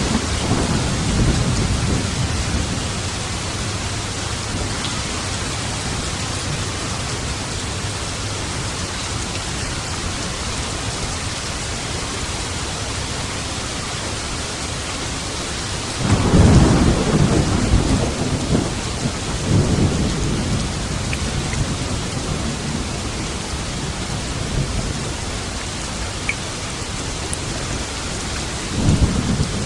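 Steady heavy rain with rolling thunder. The thunder swells at the start, rumbles loudest for a few seconds from about 16 s in, and builds again near the end.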